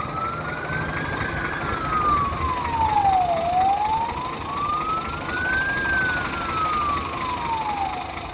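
Siren of a Scania P400 fire engine on an emergency run: a slow wail rising and falling about every four and a half seconds. The truck's diesel engine rumbles underneath as it pulls away, and the wail grows fainter as it drives off.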